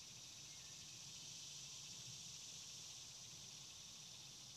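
Faint, steady, high-pitched chorus of insects.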